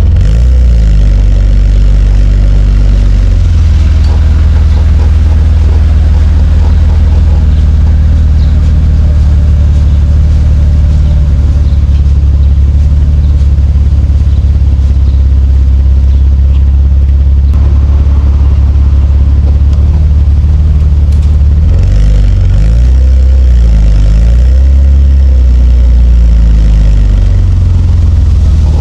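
Nissan Skyline R34 GT-T's turbocharged straight-six engine running while driving, a steady low drone. Its pitch shifts as it revs and changes gear, once in the first few seconds and again several times near the end.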